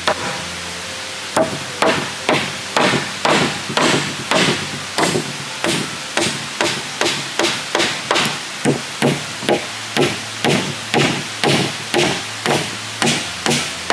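Hammer striking nails into thick wooden planks, a steady run of sharp knocks at about two strikes a second, starting about a second in.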